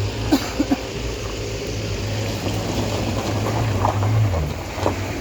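A vehicle engine running with a steady low hum that drops away a little past four seconds in, with a few short knocks and clicks over it.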